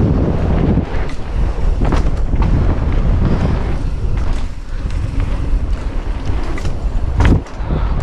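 Wind rushing over an action camera's microphone on a mountain bike ridden fast down a trail, with knocks and rattles from the bike; one louder knock about seven seconds in.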